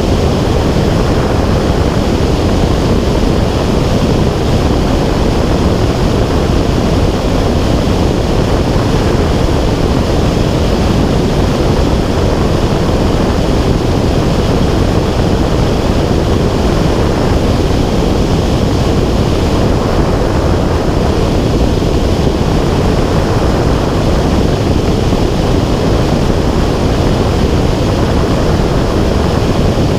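Steady, loud rushing wind noise on a camera's microphone in flight, deep and even with no breaks.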